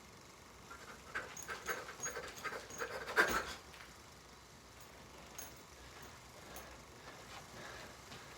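Quick panting breaths, a run of short huffs about four a second for a couple of seconds, ending in one louder puff.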